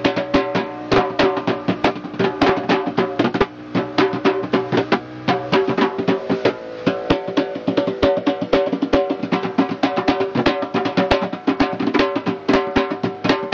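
Several hand drums with synthetic heads played with bare hands in a quick, steady, dense rhythm of slaps and ringing open tones.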